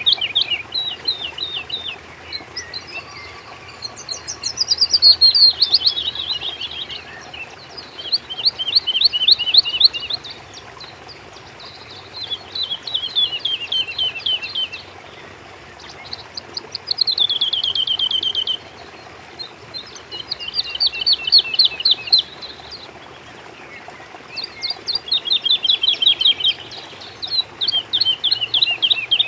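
A songbird singing: short phrases of rapid, downward-sweeping notes, each phrase lasting about two seconds and repeated every three to four seconds.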